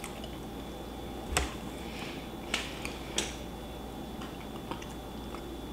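Quiet room with a steady low hum, broken by a soft knock about a second and a half in and a few faint clicks shortly after.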